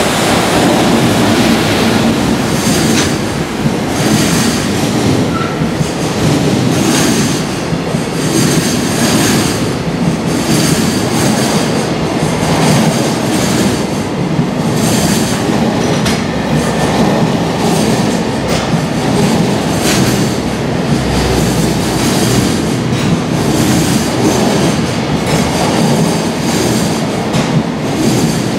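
A long container freight train passing close by. Its loaded container flatcars make a steady heavy rumble, with a repeated clatter of wheels over the rail joints.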